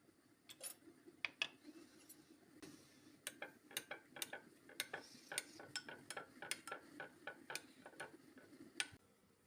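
Light, quick clicks of cutlery against a dish, a few scattered at first and then a fairly steady run of about four a second that stops shortly before the end.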